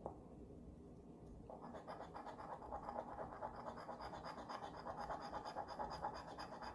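Scratch-off lottery ticket being scratched. It is faint, and rapid, repeated scraping strokes begin about a second and a half in and keep going.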